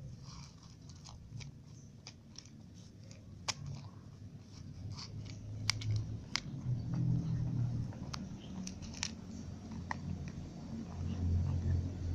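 A ginger cat chewing dry kibble, with sharp, irregular crunches as it bites the pieces.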